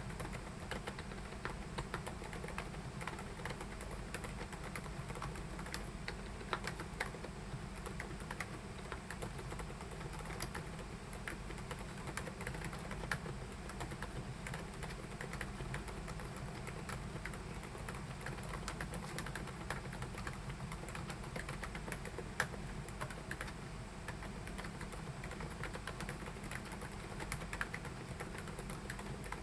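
Keychron K10 Ultra mechanical keyboard being typed on steadily: a continuous run of quick key clicks and clacks.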